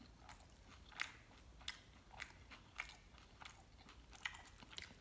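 A person chewing mole-sauced tortilla chips that still have a crunch, with faint, short crunches coming about every two-thirds of a second.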